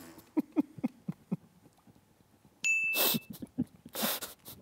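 A bright electronic ding, a single held tone of about half a second starting a little over two and a half seconds in: a point being scored after someone laughed. Short stifled chuckles and breathy puffs come before and after it.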